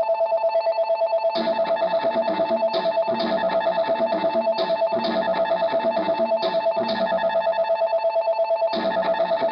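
Dance music with no vocals: a rapidly pulsing two-tone synth line like a phone ringtone, joined about a second in by a beat and plucked guitar-like notes, which drop out briefly near the end before coming back.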